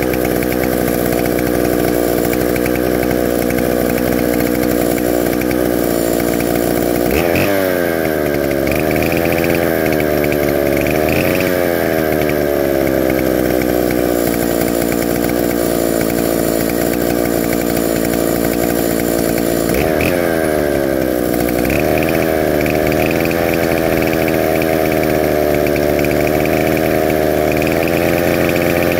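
Neo-tec NS8105 two-stroke chainsaw engine running steadily with the bar and chain off, during a heat cycle to run in the new saw. Twice, about a third and about two-thirds of the way through, its speed dips and then recovers.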